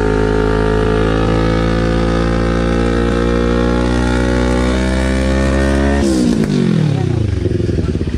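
CFMoto NK400's parallel-twin engine revved through an aftermarket slip-on muffler, held at steady raised revs. About six seconds in the throttle is released and the revs fall back to idle.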